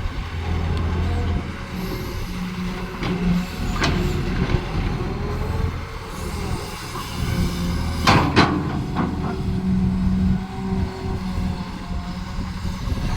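Excavator's diesel engine running steadily as it digs, its note swelling now and then, with a few sharp clanks; the loudest pair comes about eight seconds in.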